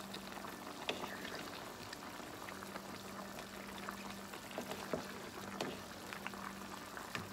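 Chicken feet adobo simmering and bubbling in a pot while a wooden spoon stirs it, with occasional light knocks of the spoon against the feet and pot.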